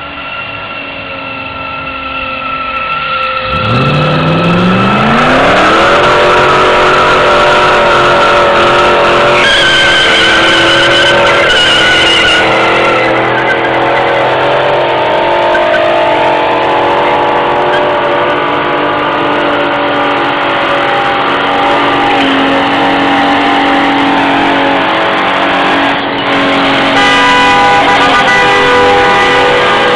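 A car doing a burnout: its engine revs up sharply about three and a half seconds in and is held at high revs, with the tyres squealing and spinning.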